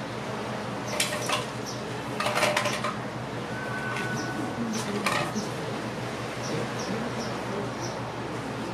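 Marina ambience: a steady low hum with faint high chirps every half second or so, and a few short knocks and clatters, one about a second in, one around two and a half seconds in and one about five seconds in.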